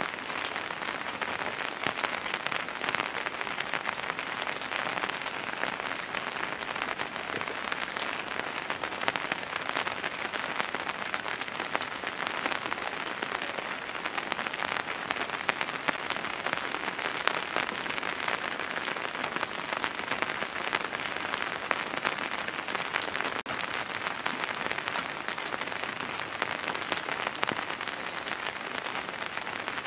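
Heavy rain falling steadily: a dense, even patter of raindrops.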